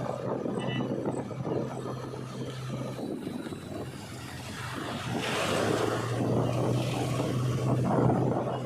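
Diesel engine of a backhoe loader working with a steady hum. About halfway through the hum fades, then the engine comes back under load together with a louder rushing noise.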